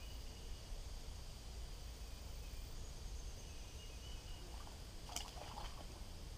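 Quiet lakeside outdoor ambience: a low steady rumble with a few faint high chirps. One brief sharp sound comes about five seconds in.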